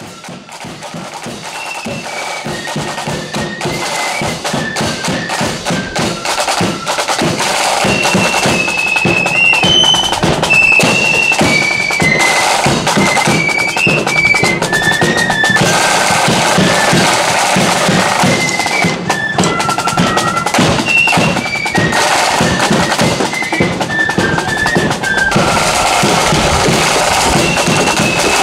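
Marching flute band playing a tune: a high, shrill melody of flutes over snare and bass drums keeping a march beat. It fades in over the first few seconds, then holds steady.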